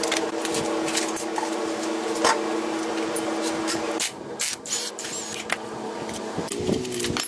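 A small motor running steadily with a hiss and scattered clicks, cutting out about four seconds in; quieter clicks and a short wavering tone follow.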